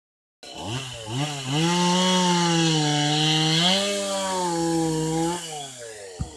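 Chainsaw engine blipped twice, then held at high revs for about four seconds before dropping back toward idle. A single sharp knock near the end.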